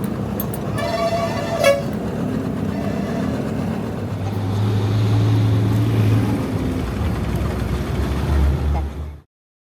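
Motorcycle engine running with its modified exhaust, louder for a couple of seconds in the middle, with a short horn toot about a second in. The sound cuts off suddenly near the end.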